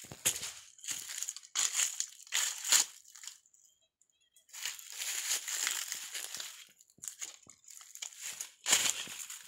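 Footsteps crunching and crackling through a thick layer of dry, fallen bamboo leaves, in uneven steps with a brief pause about four seconds in.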